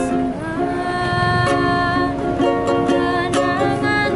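A young woman singing held, wavering notes of an Indonesian pop ballad to a strummed ukulele.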